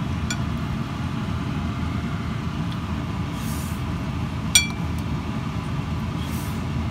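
A spoon clinks once against a ceramic plate about four and a half seconds in, with a short ring, over a steady low rumble.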